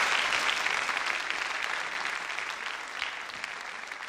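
Audience applauding, the clapping dying away steadily.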